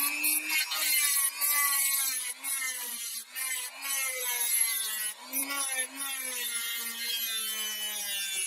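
Rotary tool with a cutting disc cutting through a metal bicycle spoke: a high motor whine whose pitch sags and recovers as the disc bites, under a grinding hiss, with a few brief breaks where the disc eases off.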